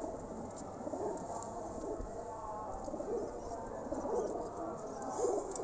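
Domestic pigeons cooing: a run of repeated low coos.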